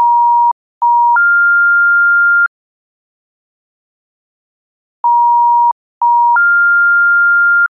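South African telephone comfort tone, the call-progress signal telling the caller that the call is being processed and to wait. A lower steady tone, a short break, then a brief lower tone that steps straight up into a longer higher tone, followed by about two and a half seconds of silence. The pattern plays twice.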